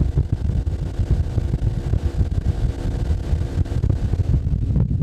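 Fishing boat's motor running steadily under way, with wind buffeting the microphone.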